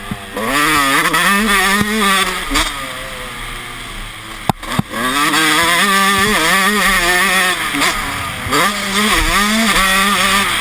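Honda CR 125 two-stroke motocross engine with a Mugen cylinder and FMF exhaust, heard from the rider's helmet, revving up and falling back again and again as the throttle is opened and shut through corners and onto a straight. A sharp knock comes about four and a half seconds in.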